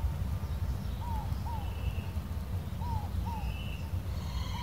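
Inca dove cooing in the background: its two-note coo, a pair of short notes repeated about every two seconds. It sounds over a steady low rumble, with a few faint higher chirps from another bird.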